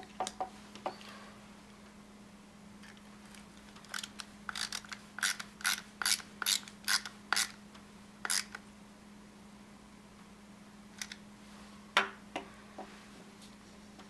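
A hand screwdriver driving a small T8 Torx screw into a plastic door latch assembly, clicking in a regular run of about two clicks a second for several seconds. A single sharp knock comes near the end.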